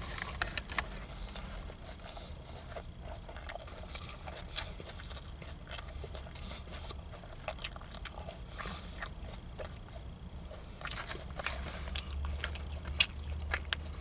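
A person chewing a mouthful of sandwich close to the microphone, with scattered small crunches and clicks.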